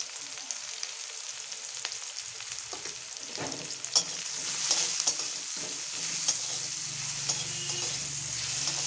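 Sliced onion and potato chunks sizzling in hot oil in a karai (wok), with a spatula scraping and stirring through them from about halfway through.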